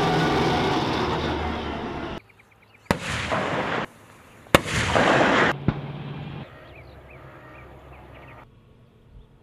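Bradley fighting vehicle running loudly on its tracks for about two seconds. Then, after a cut, three single heavy gunshots, each a sharp crack followed by a rolling rumble, consistent with the Bradley's 25 mm chain gun. Faint chirps come near the end.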